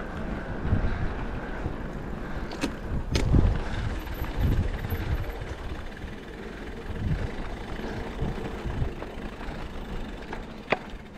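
Riding noise from an e-bike on a dirt trail: a gusty rumble of wind and tyres. There are two sharp knocks about three seconds in.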